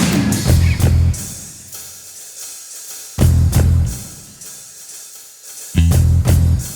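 Background music: a drum-led instrumental with heavy bass-and-drum hits about every two and a half seconds and cymbals between them.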